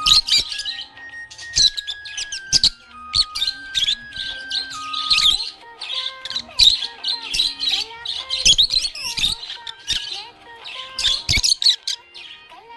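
Budgerigars chirping and warbling in rapid, dense bursts throughout. A simple tune of held, stepped notes plays under them for roughly the first five and a half seconds.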